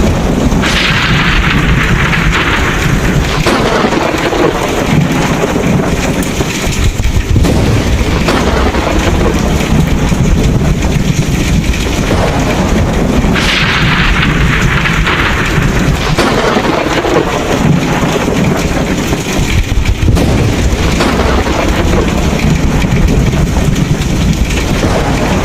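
Thunderstorm: heavy rain falls steadily under a low rumble of thunder. Two thunderclaps break in, one about half a second in and one about halfway through, and each dies away over a few seconds.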